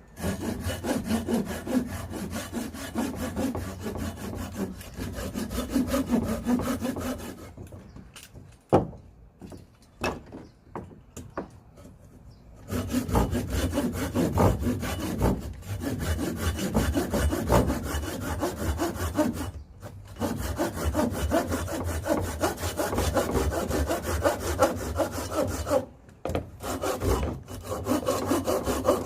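A saw cutting through a piece of firewood with fast, even strokes. It stops for about five seconds a quarter of the way in, with a knock or two, then starts again, with one more short break near the end.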